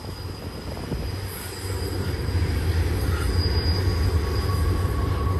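Freight train rumbling low and steadily, growing a little louder after about two seconds, with a thin squeal setting in near the end, typical of wheels on a curve.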